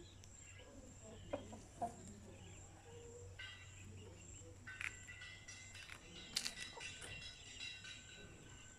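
Chickens clucking faintly, with two sharp clicks early on and steady high tones coming in a little under halfway.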